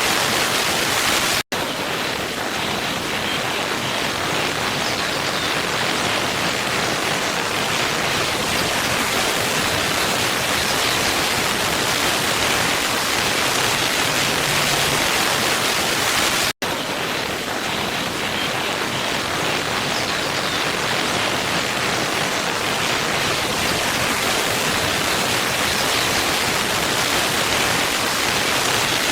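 Waterfall rushing, a steady, even roar of falling water, cut by two split-second dropouts to silence, about a second and a half in and again about sixteen and a half seconds in.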